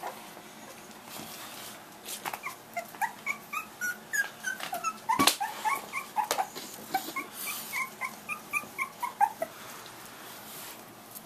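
English bulldog puppy whimpering in a quick run of short, high squeaks, starting about two seconds in and stopping near the end. A sharp knock about halfway through.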